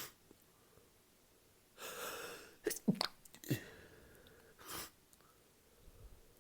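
A person in a sneezing fit: a drawn-in breath about two seconds in, then a loud sneeze with a second short burst just after it, and a short breathy burst near the end. The fit is one that drinking alcohol brings on.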